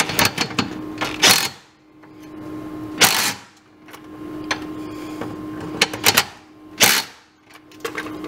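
Socket ratchet clicking in short bursts while tightening a leaf-spring shackle bolt on a golf cart's rear suspension, with a wrench on the nut; the bursts come about a second in, about three seconds in, around six seconds in and near seven seconds. A faint steady hum runs underneath.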